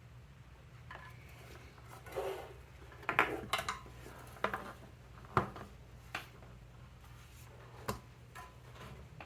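Light metallic clinks and taps of small metal parts and tools being handled, with a few sharper clinks between about three and eight seconds in, over a steady low hum.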